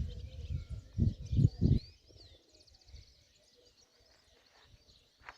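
Several small birds chirping, with a fast trill about two and a half seconds in. A loud low rumbling noise underneath stops about two seconds in.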